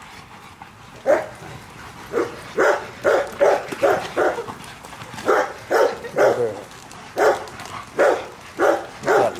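Young Rottweilers barking at play while leaping at a hanging tire: about fifteen short barks, starting about a second in and coming mostly in quick runs of three or four.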